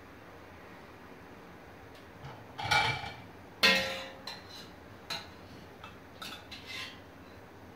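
A metal spoon knocking and scraping against a stainless steel pot as boiled beetroots are lifted out. There is a dull knock between 2.5 and 3 seconds in, a loud ringing clang just over three and a half seconds in, and a few lighter clinks after it.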